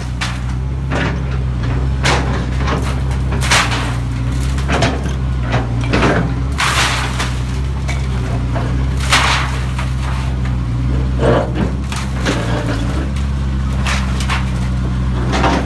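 Excavator's diesel engine running steadily. Over it come about a dozen irregular sharp cracks and crunches as the machine works, the loudest a few seconds in and about nine seconds in.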